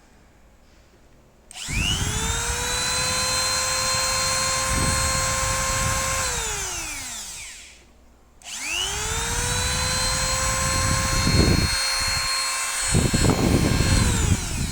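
Fujiyama FG9395N mini grinder switched on twice, spinning up quickly to a steady high whine and winding down with a falling pitch after each switch-off. A few short rough bursts sound during the runs.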